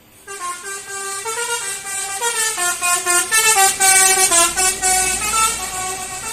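A tour bus's telolet horn, a multi-tone air horn, playing a quick melody of stepped notes that changes pitch every fraction of a second. It starts suddenly about a third of a second in and is loud.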